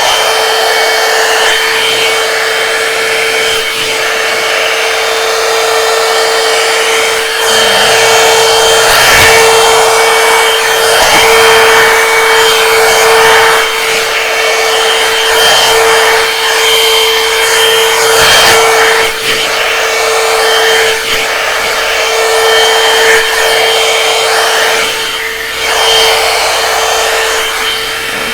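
Hot-air blow-dryer round brush running continuously, a steady rush of air over a constant motor whine, with some rubbing as the brush is worked through hair.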